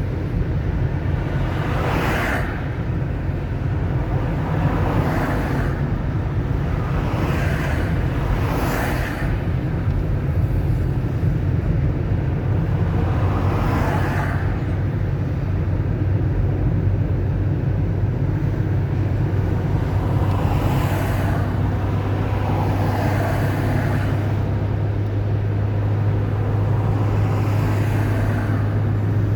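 A car driving on a wet road: a steady low drone of engine and road noise, with a hiss that swells and fades every few seconds.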